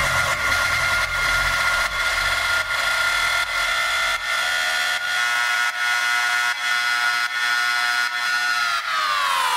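Raw hardstyle music in a build-up with the bass cut away: a sustained, distorted synth chord over a steady tick of about three beats a second, the whole chord sliding down in pitch near the end.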